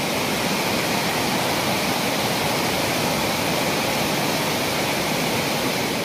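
Waterfall and the fast, rocky stream below it rushing in monsoon flood, a steady even rush of white water.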